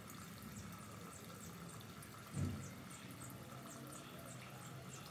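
Faint outdoor ambience with a small bird giving short high chirps, a few a second, and a brief low thud about two and a half seconds in.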